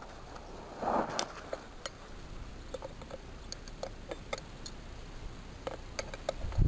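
Scattered light clicks and taps of tools and metal parts being handled while a Malysh vibration well pump is taken apart, with a short rustle about a second in.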